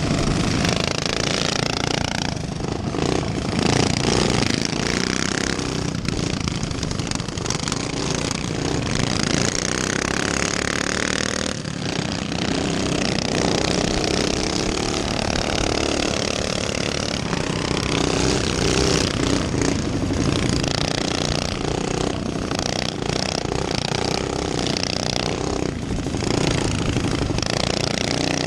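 Small engines of motorized barstool racers running at racing speed, their pitch rising and falling as the riders work the throttle.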